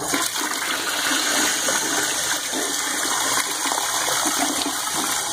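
Toilet flushing: a steady rush of water swirling down the bowl, starting at once.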